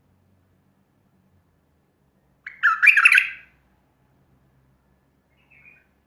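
Bulbul singing: one loud, warbling phrase of about a second near the middle, then a faint short call near the end.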